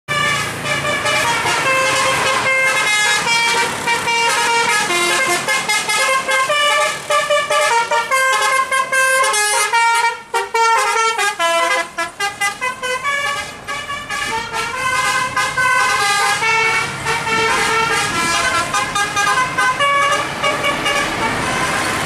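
A tour bus's Basuri telolet musical horn plays a fast tune of short held notes, one after another.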